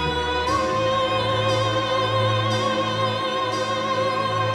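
Background music: a slow melody of long held notes with vibrato over a low sustained drone, changing note about half a second in, with a soft pulse about once a second.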